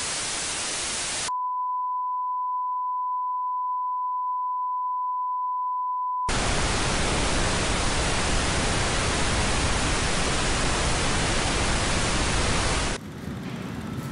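Television static hiss. About a second in it switches to a steady, pure test-tone beep for about five seconds, then the static hiss returns and cuts off about a second before the end.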